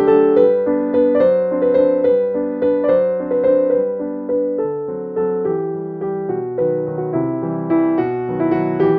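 Background piano music: a gentle melody of evenly paced notes, about two a second.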